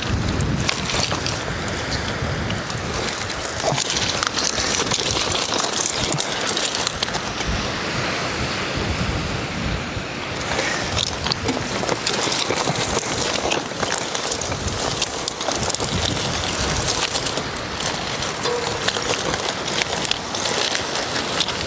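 Steady wind buffeting the microphone, with rustling and crunching as a loaded bicycle is pushed on foot through tall grass.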